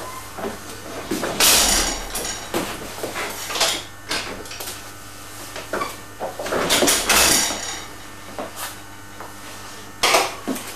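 Signal box lever frame being worked: heavy steel levers pulled over with metallic clanks and rattles of the catch handles. There are two longer, heavier pulls about a second and a half in and about seven seconds in, with sharp knocks between them.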